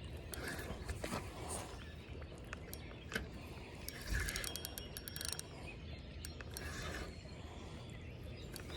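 Fishing reel being cranked to bring in a hooked catfish, a soft mechanical ticking and whirring of its gears that comes and goes in uneven swells.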